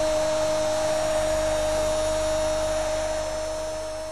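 Steady noise of a football stadium crowd on a TV broadcast, with a constant hum-like tone running through it; it fades out near the end.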